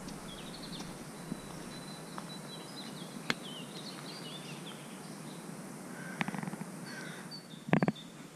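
Small birds chirping and twittering over a steady outdoor background hiss, with a single sharp click about three seconds in and a short knock near the end.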